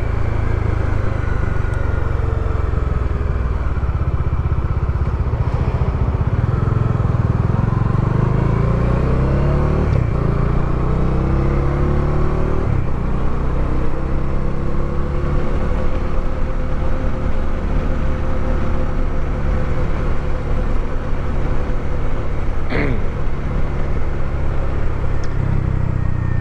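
Motorcycle engine running under way, its pitch rising and falling with the throttle, picked up by a lavalier mic inside the rider's helmet. A brief high-pitched sound about three-quarters of the way through.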